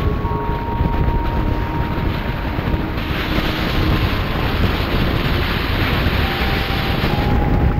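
Ford Fiesta ST driving at steady speed: a continuous rush of tyre, road and wind noise, with wind buffeting the camera microphone. The hiss grows louder and brighter for about four seconds in the middle.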